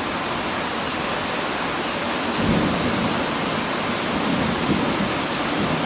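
Steady rain, with a low rumble of thunder rolling in about two seconds in and going on.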